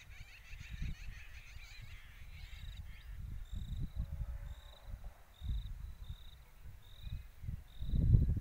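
Wind gusting over the microphone in a wheat field, in uneven low bursts, strongest near the end. Birds twitter for the first few seconds, and a short high chirp then repeats about twice a second.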